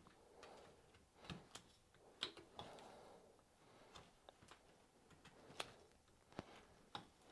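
Faint sounds of a carving knife slicing into a willow stick: soft shaving strokes with scattered small, sharp clicks at irregular intervals.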